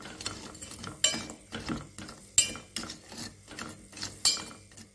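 A metal spoon stirs chunks of palm jaggery in a little water in a stainless steel pot to dissolve them, clinking and scraping against the pot in a run of irregular sharp knocks.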